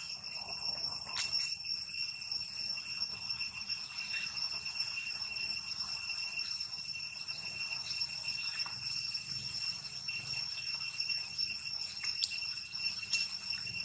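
Cicada chorus droning steadily at a high pitch, with a few faint clicks and scrapes as a macaque picks at a coconut husk.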